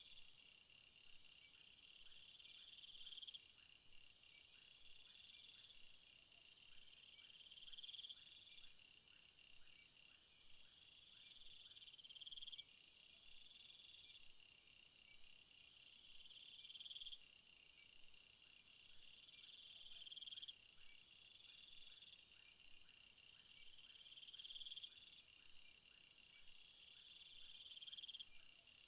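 Faint nature ambience of steady, high-pitched chirping, with a swelling trill that repeats every two to four seconds.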